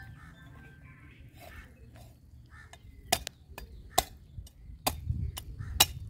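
A large knife chopping through a big common carp's scaled body onto a wooden chopping block: a quiet stretch, then about half a dozen sharp knocks in the second half.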